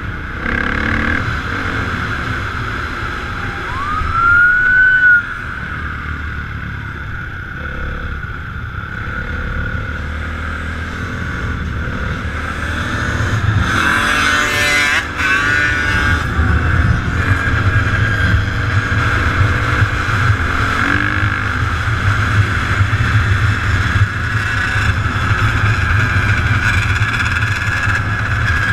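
Motorcycle and dirt-bike engines running and revving, with a short rising whine about four seconds in and the engine noise building louder in the second half.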